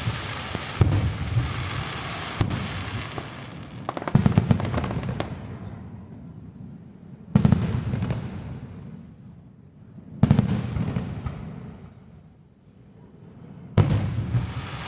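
Aerial fireworks shells bursting: about six loud booms a few seconds apart, each trailing off in a long echoing rumble.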